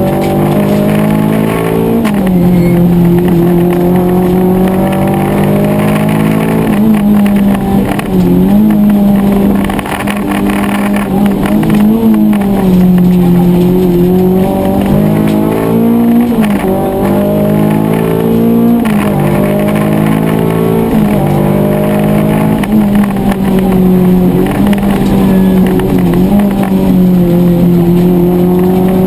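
Rally car's engine heard inside the cabin, driven hard along a special stage: the engine note climbs in pitch under acceleration and drops back at each gear change or lift, over and over.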